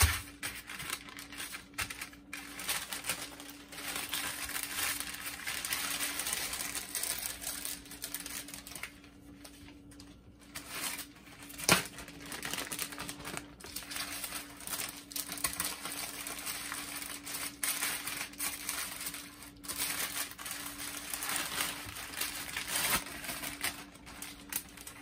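Plastic bag and wrap crinkling and rustling as hands handle them, on and off, with a single sharp click about twelve seconds in.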